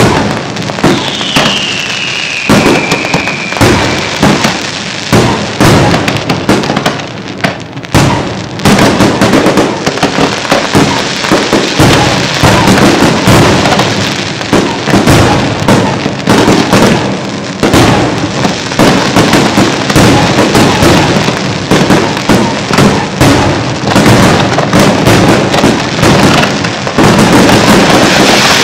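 Fireworks going off in a dense, nearly continuous barrage of shell bursts and crackling, with a falling whistle about a second in.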